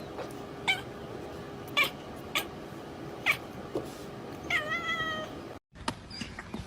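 A cat making a series of short, clipped cries about once a second, then one longer meow about four and a half seconds in.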